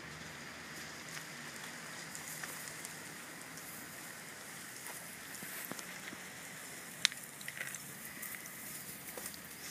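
Boxer puppies scuffling in grass: faint crackly rustling with scattered small clicks, and one sharp click about seven seconds in.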